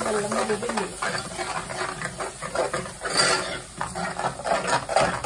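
A spoon stirring and scraping through a wet, spiced tomato-and-onion curry base in an aluminium pot, with irregular scrapes and light knocks against the pot.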